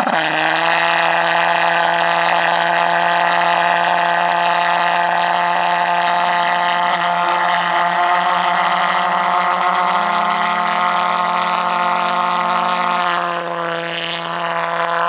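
Pulse jet engine of a radio-controlled delta-wing jet model running on its launch stand: a loud, steady drone held at one pitch. Near the end the sound dips and wavers as the model is launched off the stand.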